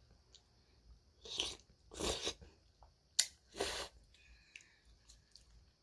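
A person eating noodles off a spoon close to the microphone: chewing mouth sounds in a few short bursts, with a sharp click about three seconds in.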